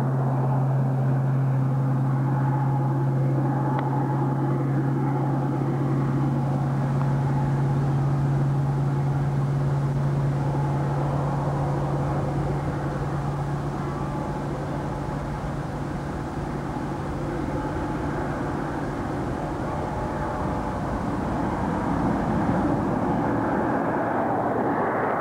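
Steady engine drone of an unseen vehicle, with a strong low hum that fades away about three quarters of the way through as a broader rumble takes over near the end.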